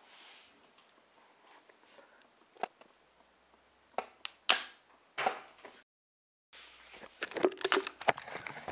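Sharp clicks and snaps from handling a small homemade chopstick-and-rubber-band crossbow, a few seconds apart, with the loudest about four and a half seconds in. After a brief dropout near the end comes a quick run of rustling and tapping as the crossbow is moved about.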